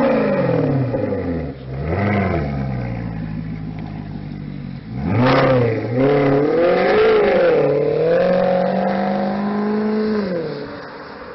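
Maserati Quattroporte engine revving sharply at the start, the revs falling away, then revved again about five seconds in. It then runs on steadily, rising and dipping in pitch as the car pulls away, and fades near the end.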